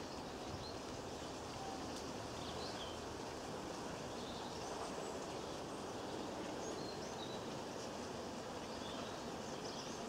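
Steady low background rumble with faint, short bird chirps scattered through it, from small garden songbirds.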